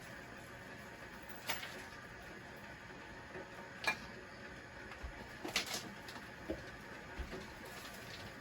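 A few light, sharp clicks and soft knocks, spaced a second or two apart, over quiet room tone.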